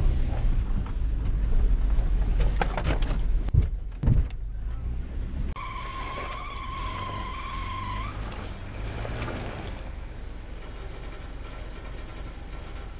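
Off-road vehicle driving along a rough dirt forest track, heard from inside the cab: a steady low engine-and-road rumble with two heavy thumps about three and a half and four seconds in. About five and a half seconds in it gives way to a quieter vehicle engine heard in the open, with a steady high-pitched tone for about two seconds.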